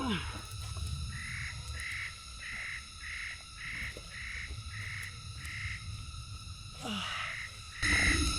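A forest bird calling a series of short, evenly repeated notes, about one and a half a second, pausing briefly and starting again near the end.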